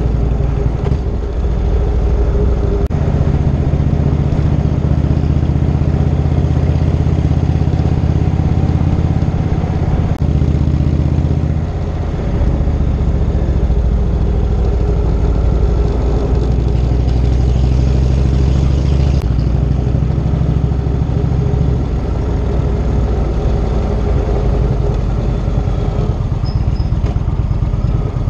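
Indian Chieftain motorcycle's V-twin engine running on the move, its note stepping up and down several times with throttle and gear changes.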